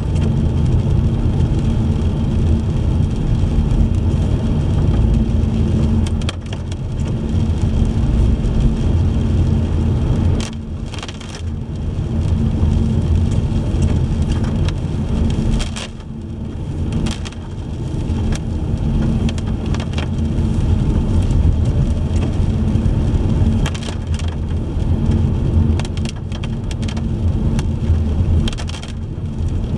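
Car driving on wet roads in the rain: a steady low road and engine rumble with tyre and rain hiss, easing off briefly a few times.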